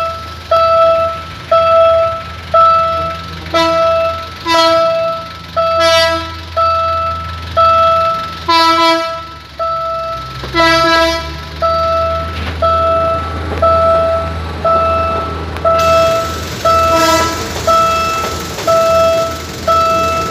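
Railway level-crossing warning bell ringing about once a second as the barrier is down for an approaching train, with several short horn toots in the middle and a low engine rumble underneath. Over the last few seconds the noise of the passing diesel train comes in.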